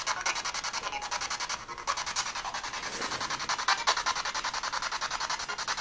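Spirit box, a portable radio sweeping rapidly through stations, giving steady choppy static that stutters many times a second as it scans.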